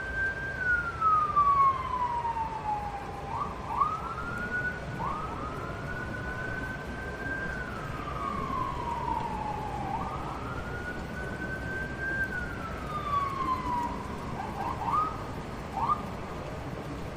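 Emergency vehicle siren wailing: a slow rise and fall repeating about every five seconds, broken by a few short rising whoops, over a steady low rumble.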